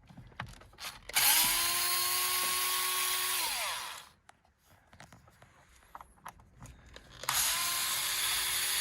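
Electric screwdriver with a T20 Torx bit running twice, each run about three seconds: the motor spins up and holds a steady whine as it backs out the tight screws of the steering-wheel button unit. Light clicks between the two runs.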